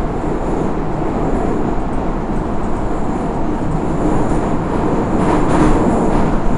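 81-556 NeVa metro train running through a tunnel, heard from inside the car: a steady rumble and rush of wheels on rails. It swells briefly with a louder rushing hiss about five seconds in.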